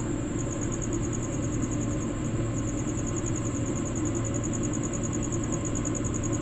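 Crickets trilling steadily at a high pitch in a rapid, even pulse, over a low steady hum.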